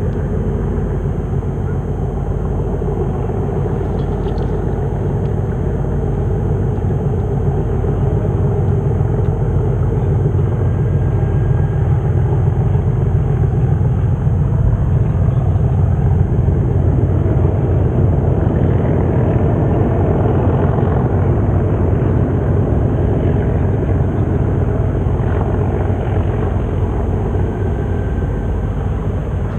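Diesel locomotive engines heard out of sight: a steady low rumble that grows a little louder towards the middle and then holds, most likely the pair of Class 37 locomotives heading the test train.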